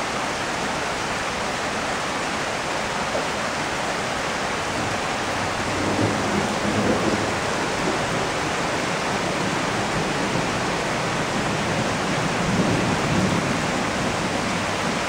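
Heavy rain pouring steadily: a dense, even hiss, with two brief low swells about six and thirteen seconds in.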